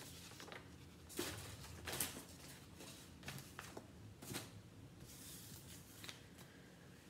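Faint crinkling and a few sharp little clicks, scattered at irregular times, from peeling the protective backing film off a phone screen protector.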